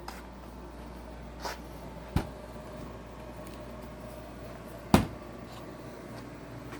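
A few separate knocks and clunks of something being handled, the loudest about five seconds in, over a steady low hum.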